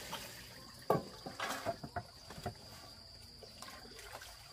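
A steady high-pitched insect trill, with a few short knocks and clatters in the first half.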